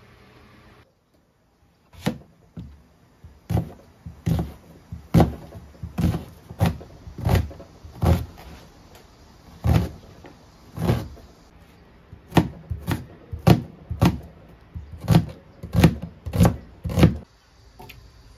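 Kitchen knife chopping an onion on a cutting board: about twenty sharp chops, each a knock of the blade against the board, unevenly spaced with short pauses.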